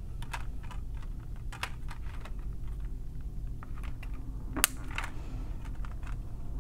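Light plastic clicks and taps as DVD discs are handled and pressed down onto the hubs of a plastic multi-disc case, with one sharper snap about two-thirds of the way in.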